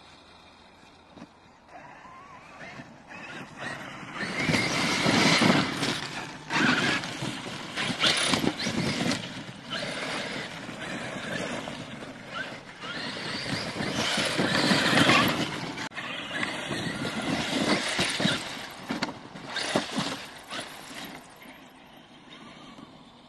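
Traxxas X-Maxx electric RC monster truck driving hard in sand, its motor whining and its tyres churning sand, the sound swelling and fading as it passes. It is quiet at first, loudest about five seconds in and again around fifteen seconds, and dies down near the end.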